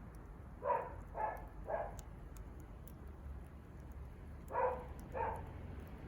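A dog barking: three barks in quick succession, then two more about three seconds later. Faint crackles from a wood fire underneath.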